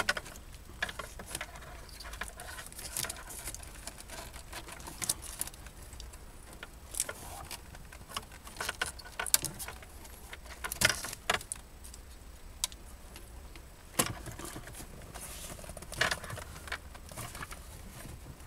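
Scattered light clicks, taps and rattles of plastic wiring connectors and the car radio's metal casing being handled while the radio's harness plugs are unplugged, with a few sharper clicks now and then.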